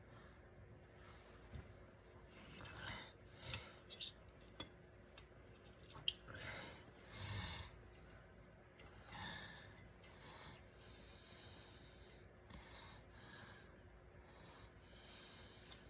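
Faint rustling and scraping with a few light clicks, as the wires and metal parts in an electric baseboard heater's wiring compartment are handled, over a faint steady hum.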